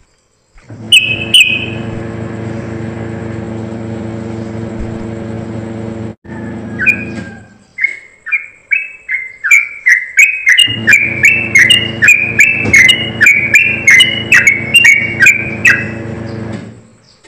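A caged yellow-vented bulbul (trucukan) gives two high calls, then from about seven seconds in sings a fast, high-pitched run of repeated chirping notes, about two to three a second. Under it runs a steady low mechanical hum that drops out for a few seconds in the middle.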